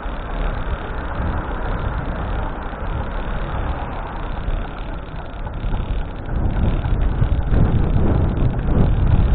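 Steady outdoor road-traffic noise with wind rushing on the microphone; the low rumble grows louder about six seconds in.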